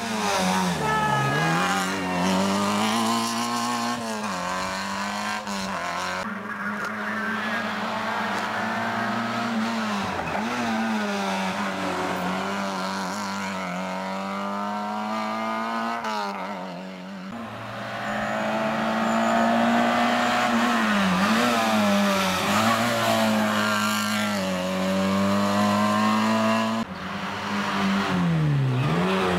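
Rally car engines running hard at high revs, the pitch dipping and climbing again every few seconds with gear changes and lifts off the throttle, across several separate passes.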